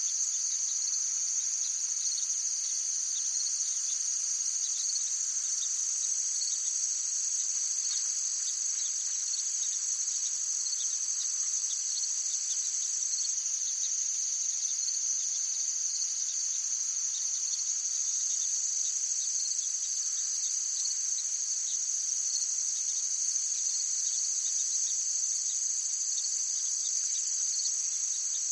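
Forest ambience made up of a steady, high-pitched chorus of insects trilling without a break, with faint quick ticks beneath it.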